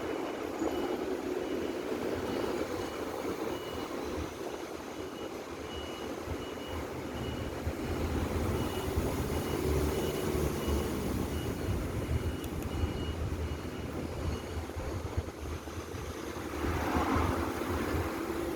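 Reversing beeper sounding a short high beep about one and a half times a second, stopping about fourteen seconds in, over a steady low rumble.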